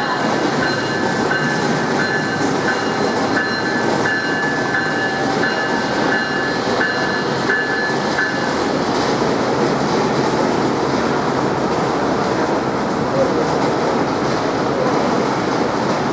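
Passenger train running through the station, a steady loud rumble with some clickety-clack. A repeating high ringing tone, about two strokes a second, goes on over it and stops about halfway through.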